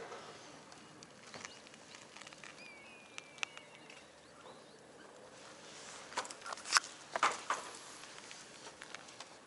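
A tabby cat brushing and bumping against a ground-level action camera. Scattered light taps and rubs come close to the microphone, with a cluster of louder knocks about six to seven and a half seconds in.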